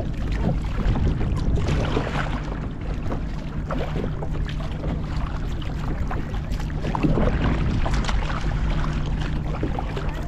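Kayak paddling: a double-bladed paddle dips and splashes at irregular intervals, and water moves against the hull, over a steady low rumble of wind on the microphone.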